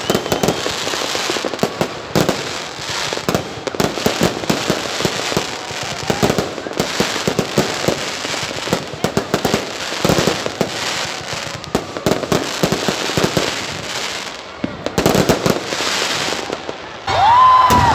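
Aerial fireworks display: shell bursts banging and crackling many times in quick succession. Near the end, loud shouts from the crowd cut in.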